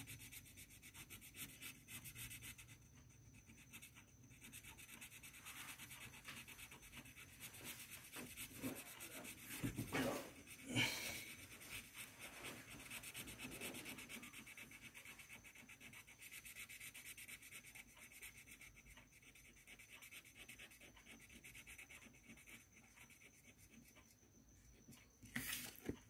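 Blue colouring pencils scribbling on a colouring book page, a faint steady scratching of pencil on paper, with a few louder strokes about ten seconds in and again near the end.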